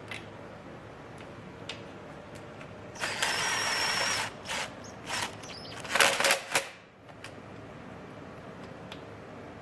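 Power driver fitted with a bit extension running for about a second with a high whine, driving a Torx bolt of a shifter into a transmission. Several sharp clacks of tool handling follow.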